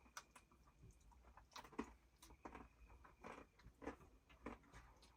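Faint chewing of a chocolate bar: a string of soft, irregular crunches close to the microphone.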